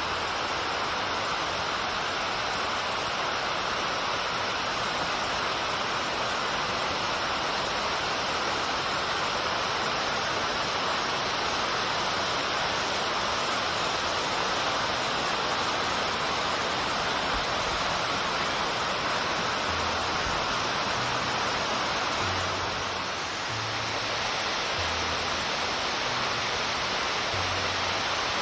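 Tendaki waterfall's water pouring down in a steady, even rush, with one brief slight dip in level about three quarters of the way through.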